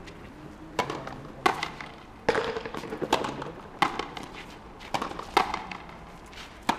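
Frontenis rally: a rubber ball struck with strung rackets and smacking off the front wall and the concrete floor, giving sharp cracks with a short echo about every half second to a second.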